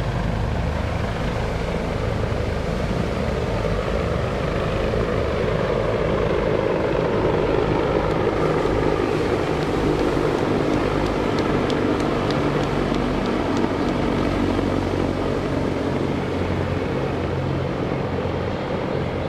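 MH-53E Sea Dragon helicopters flying past, their rotors and turbine engines making a steady, loud noise that swells a little midway.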